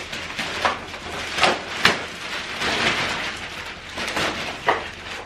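Rustling and clattering as a fold-out carrying case is handled and pulled open, with several sharp knocks or clicks among the rustle.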